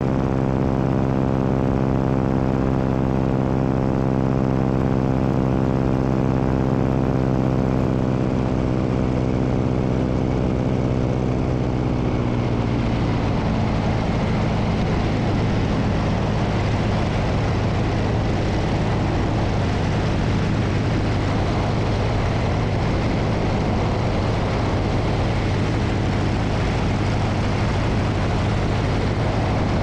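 Biplane's piston engine and propeller running steadily in flight, heard with the rush of wind over the wing-mounted microphone. About twelve seconds in, the engine note drops a little and the wind rush grows louder.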